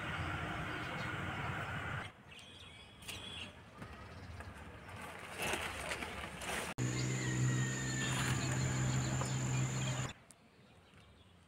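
A steady low mechanical hum that cuts off abruptly about two seconds in, returns abruptly near the middle for about three seconds, then stops again. Between the stretches of hum there are quieter rustles and small handling clicks as cauliflower leaves are handled.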